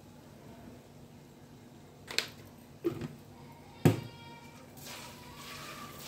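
A spatula knocks against a stainless-steel wok three or four times, the last and loudest knock leaving a brief metallic ring. Then comes a rustling scrape as roasted peanuts and cashews are stirred in the pan.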